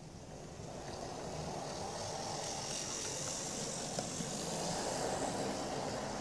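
Heljan OO gauge Class 35 Hymek model diesel locomotive running on the track: a steady whirr of its electric motor and gears with wheels rolling on the rails, growing louder as it passes close by, with a few faint clicks.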